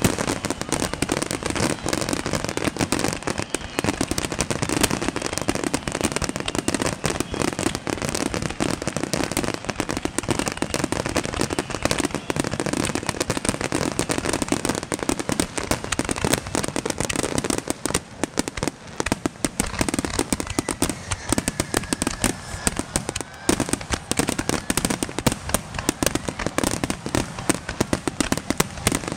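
Fireworks finale: a continuous barrage of rapid shell bursts and crackle, thinning briefly about two-thirds of the way through.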